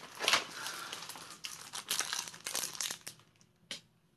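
Plastic mailer and poly bags crinkling and rustling as they are pulled open and rummaged through. The rustling dies down about three seconds in, with one more crinkle near the end.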